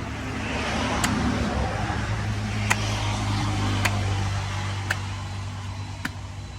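A steady low motor-like hum with a passing swell of noise, and five sharp knocks spaced about once a second.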